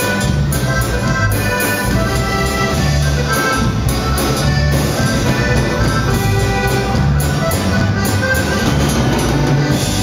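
Norteño band playing live: an accordion carries the melody over bass and a drum kit, with no singing.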